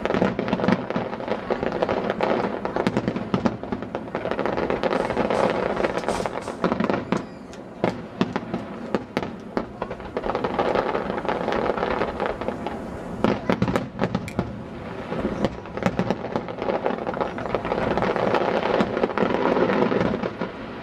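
Aerial fireworks display: shells bursting in quick succession, overlapping bangs and crackling that swell in about three waves.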